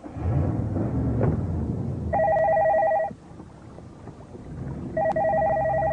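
Telephone ringing twice, each ring a fast warbling trill about a second long with a two-second gap between. A low rumble, like a car running, sits under it and is loudest in the first two seconds.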